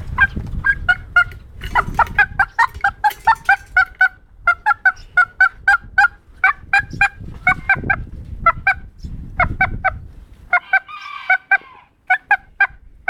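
Serama bantam rooster giving rapid short clucks in quick groups of two to four. About eleven seconds in it gives one longer, rougher call.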